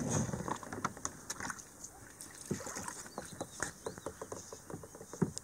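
Shallow water lapping around rocks and a kayak hull, heard as scattered light clicks and small splashes, with one dull knock near the end.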